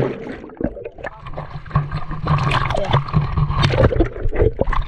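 Muffled water sloshing and gurgling around a GoPro in the water, with irregular splashes and knocks.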